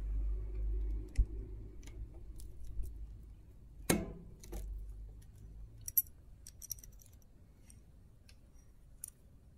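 A bicycle chain is being handled with chain tools, giving metallic clicks and light jangling of the links. There is a sharp snap about four seconds in as master-link pliers pop the chain's quick link open. More small clicks follow as the chain is set into a chain breaker.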